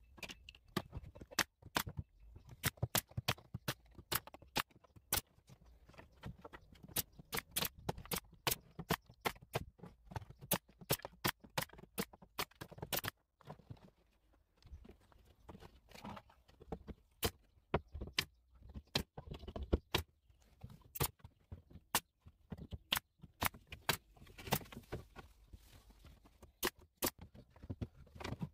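Pneumatic brad nailer firing again and again into plywood: sharp clacks, irregularly spaced and at times several a second, with a short lull about halfway through.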